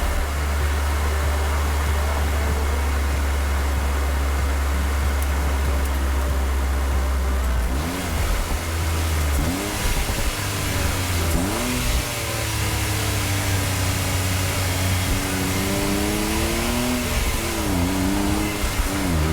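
Honda S660's small turbocharged three-cylinder engine running under way, with a steady low rumble for the first eight seconds. After that the engine pitch dips and jumps up sharply several times, the quick throttle blips of heel-and-toe downshifts.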